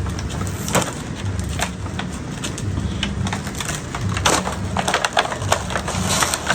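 Irregular crackling and clicking of slime-kit packaging being handled and opened, with louder snaps from about four seconds in.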